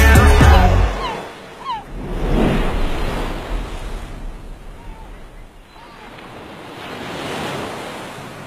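Music stops about a second in, giving way to a rushing noise that swells and fades twice, with a few short chirps near the start.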